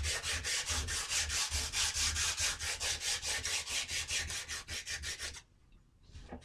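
Coarse sandpaper on a hand sanding block scrubbing back and forth across a new wooden rifle stock, fast and even at about six strokes a second, stopping abruptly about five seconds in. It is rough stock removal, taking the wood down to the size of the butt plate.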